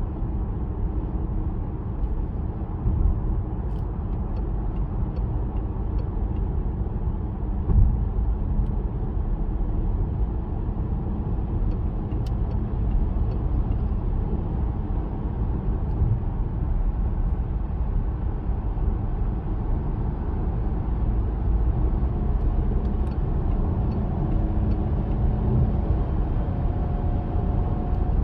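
Cabin noise inside a moving Peugeot 408 with its 1.2 PureTech three-cylinder turbo petrol engine: a steady low rumble of road, tyre and engine noise, with a single knock about eight seconds in.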